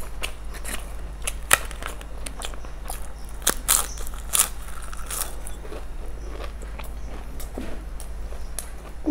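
Crisp papad being snapped and bitten, with a run of sharp crackles and crunches close to the mic. The crunching is densest in the first half, with the loudest snap about a second and a half in, and thins out to quieter chewing after that.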